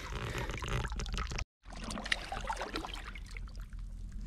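Hands groping in a water-filled crab burrow in mangrove mud: water trickling and sloshing, with many small clicks.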